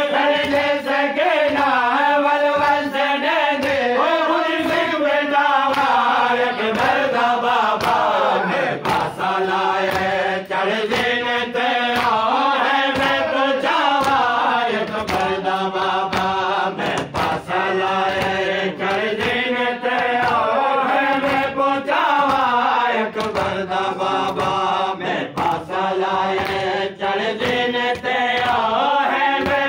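A group of men's voices chanting a Muharram lament (noha) together in a rising and falling melody, with sharp strikes throughout.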